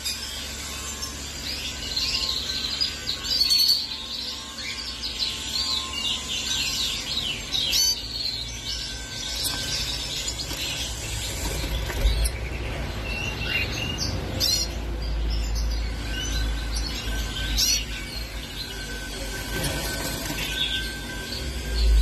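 Small finches chirping and twittering, short high calls and brief trills coming on and off throughout, over a low steady rumble.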